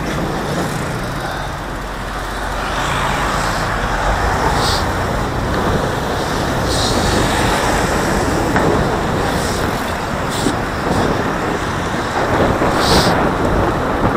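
Engine and road noise heard from a camera on a vehicle in town traffic, growing louder a few seconds in as the vehicle pulls away from a stop and gathers speed.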